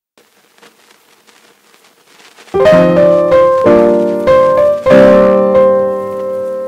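Piano music: faint at first, then loud chords from about two and a half seconds in, each struck and left to ring and fade before the next.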